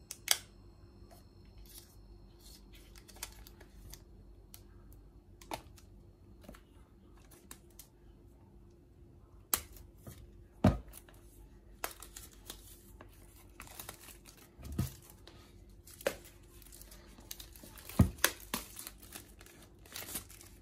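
Clear plastic wrap being peeled and torn off a cardboard AirPods Pro box and crinkled in the hands. It makes scattered crackles and sharp snaps that grow busier in the second half, the loudest snaps about eleven and eighteen seconds in.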